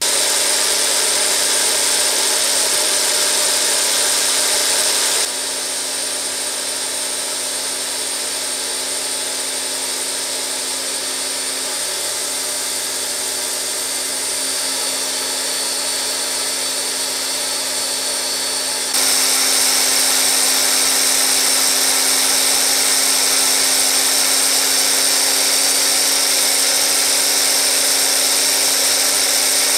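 High-speed tool-post grinder, a small rotary tool with a grinding wheel mounted on the lathe, running with a steady high whine as it grinds a 1045 steel eccentric shaft turning in the lathe. The sound steps down in level about five seconds in and comes back up about nineteen seconds in.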